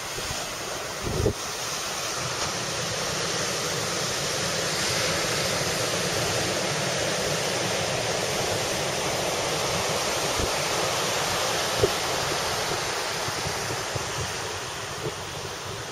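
Storm surf breaking and rushing in, with wind buffeting the microphone; the wash of water swells over the first few seconds and eases off near the end. Two brief knocks cut through, one about a second in and one near twelve seconds.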